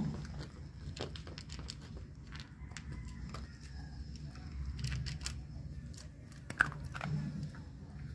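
A dog crunching and chewing dry kibble mixed with fish from a plastic bowl: irregular crunches and clicks, with one sharper click about two-thirds of the way in.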